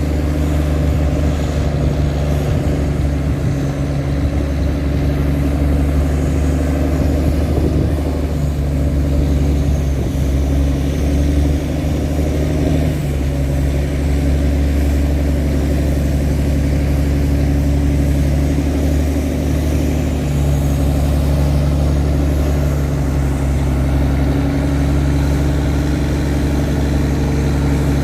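Tugboat engine running steadily while towing sand barges: a deep, even drone.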